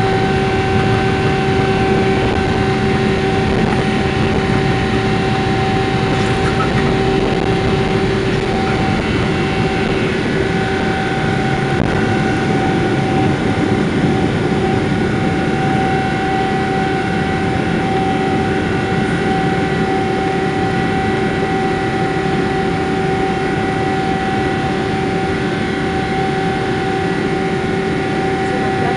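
GE90-115B turbofan of a Boeing 777-300ER running at takeoff thrust, heard from the cabin beside the engine: a loud, steady rushing noise with two strong steady fan tones, the lower one fading about a third of the way through.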